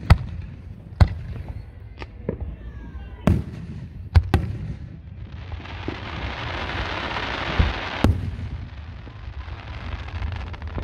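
Aerial fireworks shells bursting overhead: sharp booms roughly once a second over the first four seconds, then a dense, noisy rush from about five to eight seconds in, closed by another boom.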